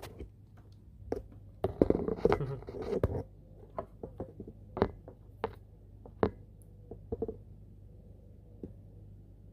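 Small metal engine parts and hand tools being handled. A burst of scraping and clattering comes about two seconds in, then single sharp clicks and taps about a second apart.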